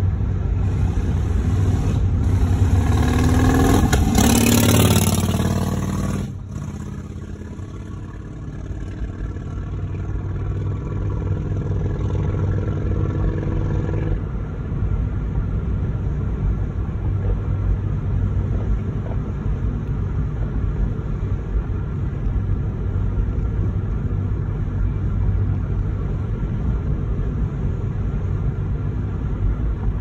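A car's engine and road rumble: a rising engine note for the first five seconds or so that cuts off abruptly about six seconds in, then a steady low rumble of driving.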